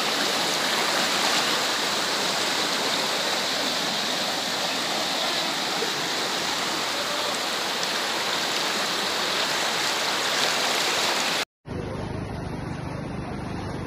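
Fast-flowing floodwater rushing and churning past an iron gate, a steady, even rush of water. It cuts off abruptly near the end, giving way to a quieter, duller noise.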